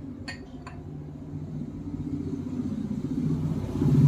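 Two light clinks of a glass bowl, under a steady low rumble that grows louder and is loudest near the end.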